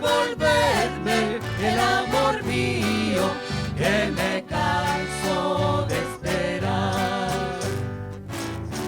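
Folk ensemble playing a waltz as an instrumental passage, melody lines over a steady bass pulse.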